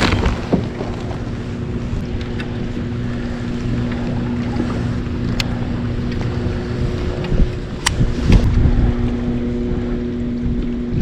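Wind buffeting the microphone with a low rumble, over a steady low hum. A few sharp clicks, three of them in the second half.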